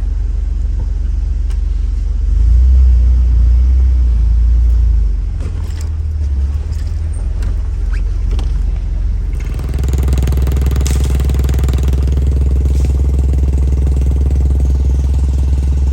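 Off-road vehicle driving along a trail: a steady low engine rumble, louder for a couple of seconds near the start, with more mechanical noise joining in about two-thirds of the way through.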